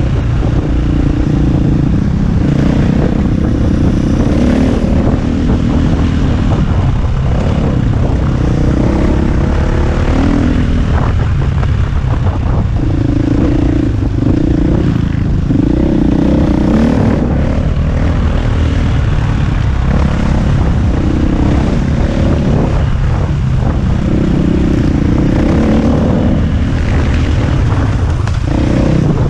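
KTM EXC450 enduro motorcycle's single-cylinder four-stroke engine being ridden, its pitch rising and falling again and again as the throttle is opened and closed, over a constant low rumble.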